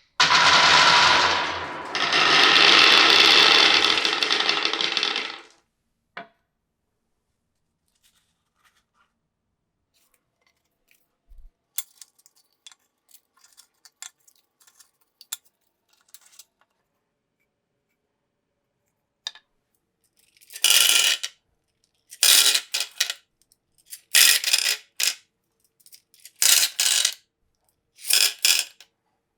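Marbles rolling along a wooden marble run for about five seconds. Then, after a quiet stretch with a few light clicks, several short clattering bursts follow as marbles drop and clink against the track.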